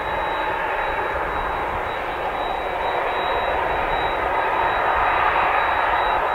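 Boeing 767-300ER airliner's two jet engines running at low power as it taxis, a steady rushing jet noise with a thin high whine. The noise swells gently in the second half.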